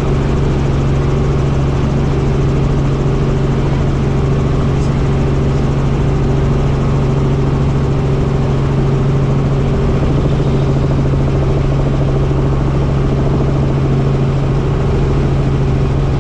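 Helicopter in flight: a loud, steady drone of engine and rotor with a strong low hum.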